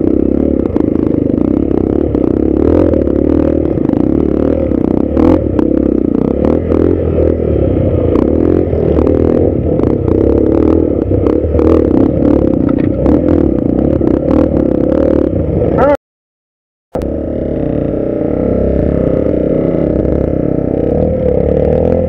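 Dirt bike engine running at low revs over rocky ground, with frequent short knocks and clatter from the bike jolting over stones. The sound cuts out completely for about a second near the end.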